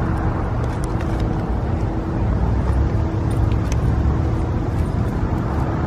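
Steady road traffic rumble, with a few faint light clicks.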